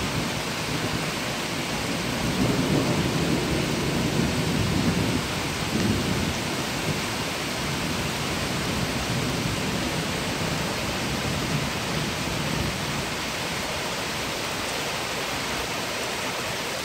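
Steady rain falling, with a long low rumble of thunder that swells about two seconds in and tails off after about six seconds.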